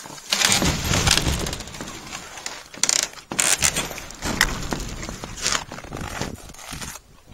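Footsteps crunching on frozen snow, a string of irregular loud scuffs with knocks and rattles among them.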